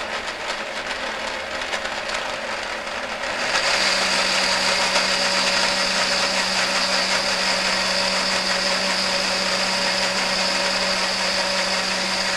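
KitchenAid countertop blender running, churning a thick squash sauce in its glass jar; about a third of the way in it steps up to a higher speed, with a louder, steady high whine over the motor hum.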